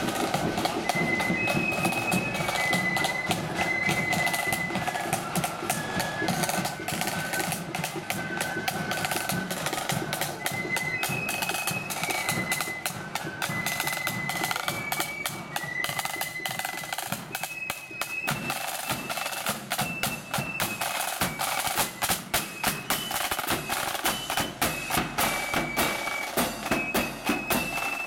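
Marching flute band playing a tune: flutes carry a high, stepping melody over rattling side drums, bass drum and cymbals, with the drum beats standing out more sharply in the second half.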